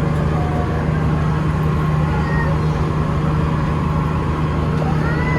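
Tour boat's engine running with a steady low drone, along with faint high voices.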